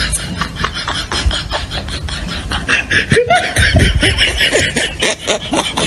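A person laughing in quick breathy pulses, with louder voiced laughs about three seconds in.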